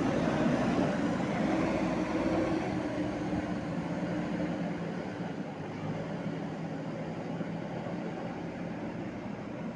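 JCB 3DX backhoe loader's diesel engine running steadily as the machine works, gradually getting quieter.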